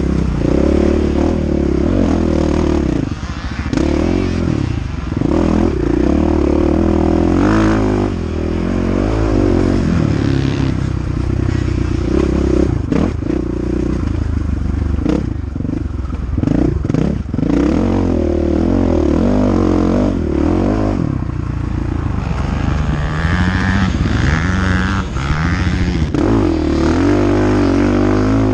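KTM 500 EXC single-cylinder four-stroke dirt bike engine under race throttle, its pitch rising and falling again and again as the rider accelerates, shifts and backs off. There are a few sharp knocks in the middle.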